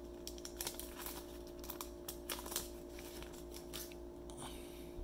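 Foil trading-card pack wrapper crinkling and crackling as it is peeled open by hand, then the cards being slid out of it, in many small irregular clicks. A steady faint hum runs underneath.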